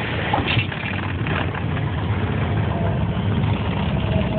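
Light aircraft's piston engine and propeller droning steadily, heard inside the cabin on the landing, with two brief knocks about half a second and a second and a half in.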